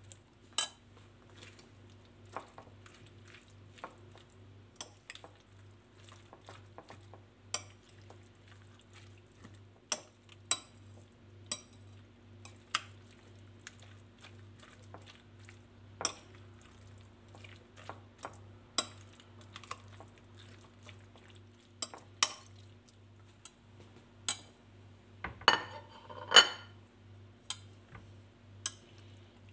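Metal spoon stirring a mayonnaise-dressed cabbage salad in a bowl, clinking against the bowl at irregular intervals, with a louder clatter and scrape near the end as the bowl is tipped and scraped out. A steady low hum runs underneath.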